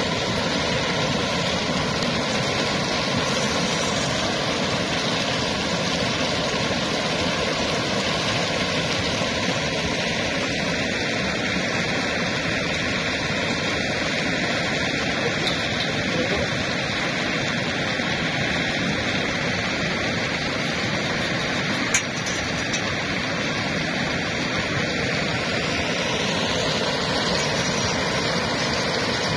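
Water rushing steadily over a weir spillway, an even noise of pouring white water. A single sharp click about three-quarters of the way through.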